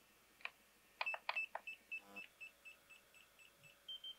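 DJI FPV Goggles V2 bind beep: a few sharp clicks, then a run of short high beeps at about four a second, the last two slightly higher in pitch. It signals that the goggles are in binding mode, linking to the Caddx Nebula Nano/Vista air unit.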